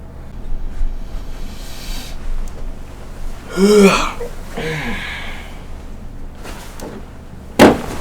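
A person's short non-speech vocal outburst, like a gasp or sneeze, about halfway through. A sharp knock comes near the end.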